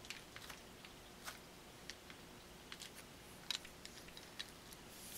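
Faint, scattered light clicks and taps from handling the AK-47's removed bolt carrier and gas piston assembly, a few more near the end.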